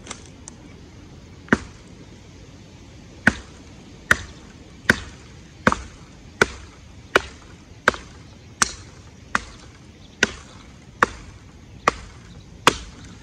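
Skachet hatchet blade on a broom-handle haft chopping into a cypress branch: about fourteen sharp blows. One comes about a second and a half in, then after a short pause they fall steadily, a little under one a second.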